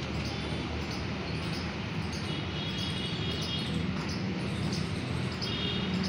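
Steady outdoor background noise with a low hum, and a short high chirping trill that comes in twice, about two seconds in and again near the end.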